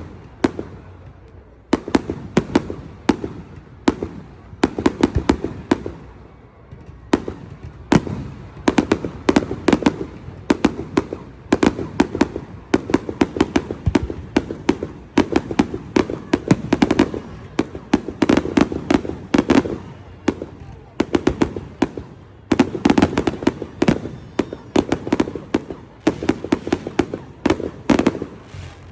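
Fireworks display: rapid, overlapping bangs and crackles, many shells bursting in quick succession over a low rumble, with brief lulls twice.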